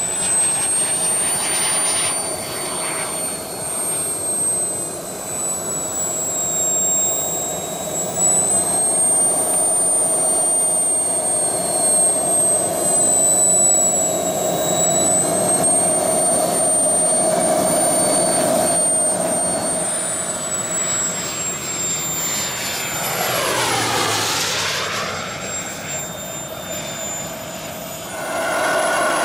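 Model jet turbine engines whining steadily at a high, slightly wavering pitch over a steady hum. About three-quarters of the way through, a louder sweep falls and rises again as a jet passes.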